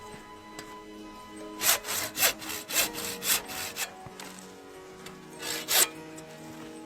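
Hand saw cutting through wood: a quick run of about eight back-and-forth strokes, a pause, then two more strokes near the end.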